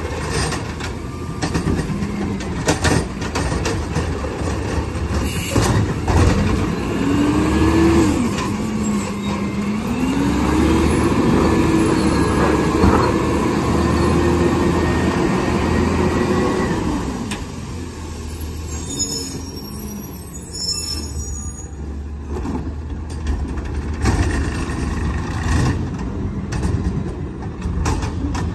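McNeilus ZR automated side-loader garbage truck with a natural-gas engine working and then moving off: knocks and bangs from the arm and cart in the first seconds, then the engine revs up in a rising pitch, holds it for several seconds and drops back. A short hiss of air comes about two-thirds through, and the engine runs on as the truck pulls away on wet pavement.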